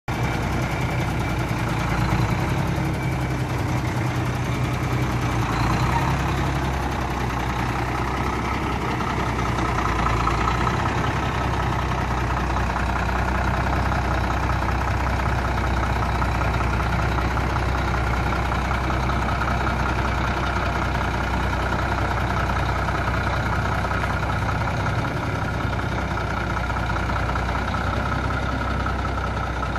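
Seddon Atkinson Strato 380 lorry's diesel engine running at low revs as the tractor unit manoeuvres slowly in reverse. The revs rise briefly a few times in the first ten seconds, then the engine runs steadily.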